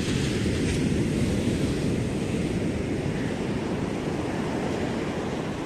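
Sea surf breaking and washing up the beach, mixed with wind buffeting the microphone: a steady, deep rumbling noise that eases a little near the end.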